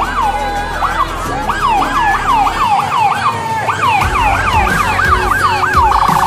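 Police car siren sounding, its pitch sweeping up and down over and over. The sweeps quicken toward the end and become a rapid warble.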